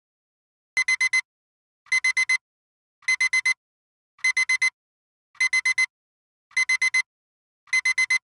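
Digital timer alarm going off as the 25-minute countdown ends: quick groups of four high beeps, one group about every second, starting a little under a second in.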